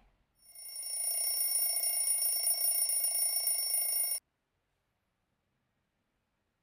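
An alarm ringing steadily with several high ringing tones, cut off abruptly about four seconds in as it is switched off; silence follows.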